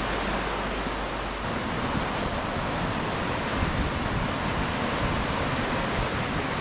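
Mountain river rushing over and between boulders, a steady, unbroken rush of white water.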